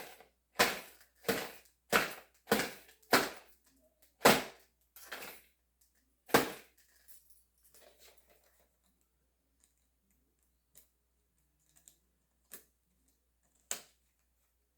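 Hard plastic broadhead packaging being forced open: a quick run of sharp snaps and clacks, about one every half second, then slower and fainter clicks.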